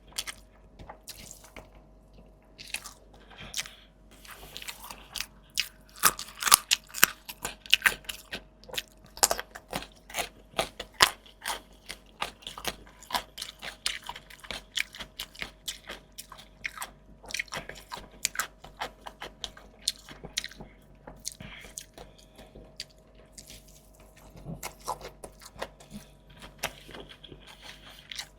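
Close-miked chewing of crisp food: rapid sharp crunches, loudest and densest in the first half and sparser later.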